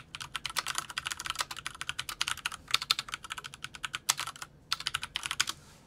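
Typing on a computer keyboard: quick, irregular key clicks with a couple of short pauses.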